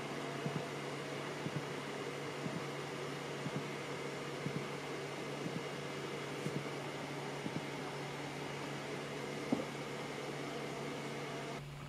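Steady fan-like whir and a low steady hum from a car amplifier driving a DL-14 dummy load through a dynamic burst test, with faint double ticks about once a second.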